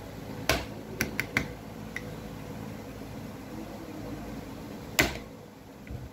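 Soldering iron and circuit board being handled at a workbench: a few light clicks and taps in the first second and a half and one louder click about five seconds in, over a steady low hum.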